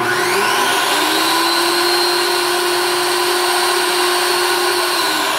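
Food processor motor running, blending toasted sesame seeds and olive oil into a sauce paste. It starts abruptly and spins up to speed over about the first second, then runs steady, its pitch sagging slightly near the end.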